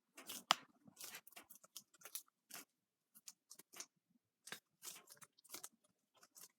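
Butterfly knife being flipped and handled: faint, irregular clicks and short scrapes of the handles and blade, the sharpest about half a second in.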